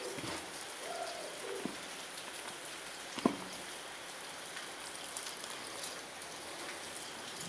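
A hand squeezing and kneading shredded young jackfruit in a plastic bowl: a soft, crackly, wet pattering, with one sharp click about three seconds in.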